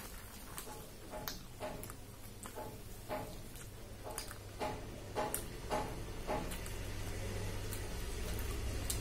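Close-up wet chewing and mouth smacking of someone eating puri with potato curry, in short irregular smacks about two a second, over a low steady hum.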